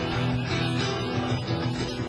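Background music led by guitar: an instrumental passage before the singing starts.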